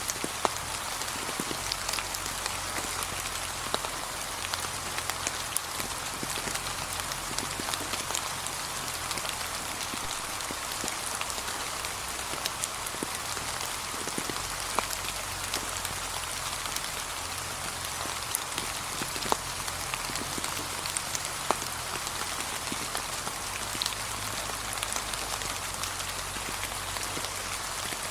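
Gentle, steady rain falling on fallen autumn leaves: an even hiss with many separate drops ticking sharply throughout.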